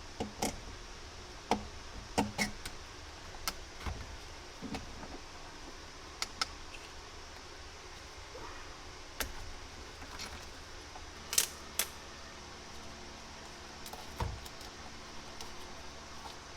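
Scattered small metallic clicks and clinks of hand tools and small carburetor parts being handled during disassembly of a generator's gummed-up carburetor. The sharpest pair of clicks comes about eleven seconds in, over a faint steady hum.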